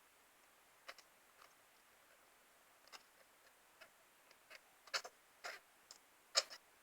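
A pet hamster sneezing: a run of tiny, sharp sneezes at irregular intervals, faint at first and louder in the second half.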